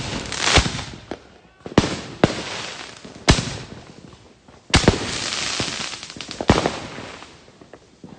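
Fireworks going off: about seven sharp bangs at uneven intervals, several trailing off into crackling, with the longest crackle after a loud bang just past halfway.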